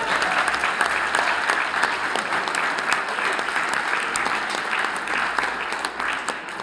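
Audience applauding with many hands clapping, steady and starting to fade near the end.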